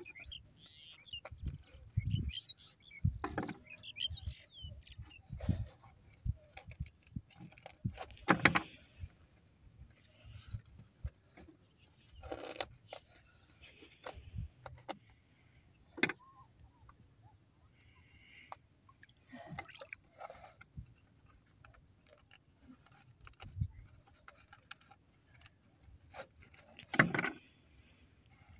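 Scattered knocks, scrapes and rustles of hands working on the floor of a wooden boat, with louder knocks about eight seconds in and near the end.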